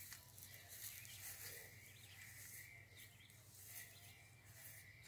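Near silence: faint outdoor ambience with a steady high-pitched hum and a low background hum.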